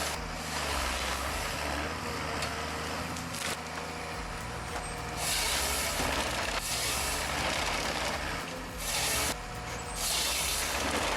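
Heavy diesel engine running steadily, with several short bursts of hissing from about five seconds in.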